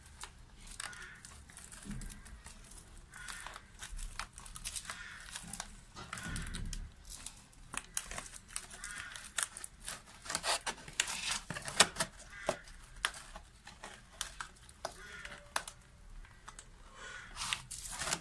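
Thin plastic bottle crinkling and crackling in irregular clicks as hands press sprouted onion sets into holes cut in its sides.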